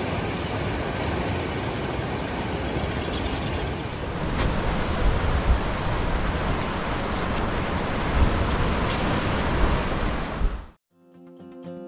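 Steady rushing of ocean surf on a rocky lava shore mixed with wind on the microphone, with a few low gusts thumping through. It cuts off suddenly near the end, and acoustic guitar music begins.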